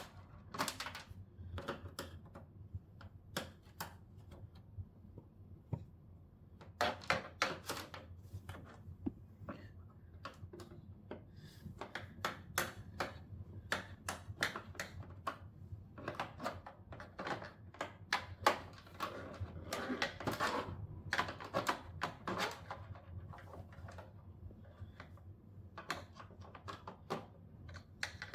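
Irregular clicks and taps of a screwdriver working screws out of a television's plastic back cover, some in quick clusters.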